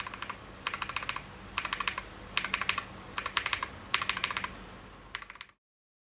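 Mechanical keyboard with Akko Jelly Black linear switches being typed on in quick bursts of keystrokes, about one burst a second. The sound cuts off suddenly near the end.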